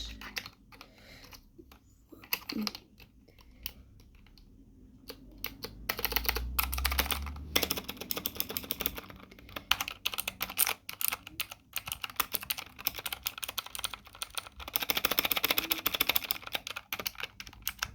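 Typing on a T-Wolf mechanical keyboard with clicky blue switches. Scattered key presses come first, then stretches of rapid typing, the densest near the end.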